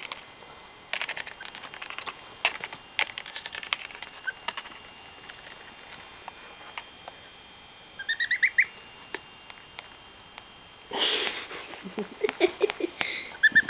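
A gosling's feet and bill clicking and tapping on a laptop keyboard, then a quick run of high, rising peeps from the gosling about eight seconds in. A short rustling burst comes a few seconds later, and a few more peeps near the end.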